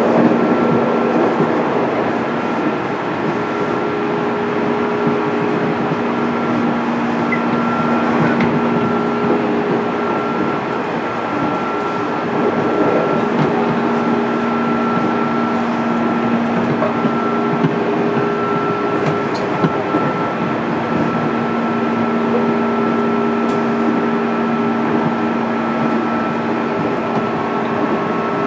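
Running sound inside a JR 205 series electric train, heard aboard motor car MoHa 205-608: the MT61 traction motors hum at an even pitch over the rumble of wheels on rail, with the train at a steady speed.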